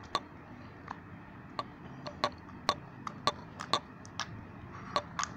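Clear-glue slime being stretched and pressed with the fingers, giving a dozen or so sharp clicks and pops at irregular intervals.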